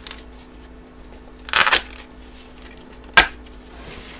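Packaging being handled: a short rustling, tearing burst about a second and a half in, then a single sharp click a little after three seconds.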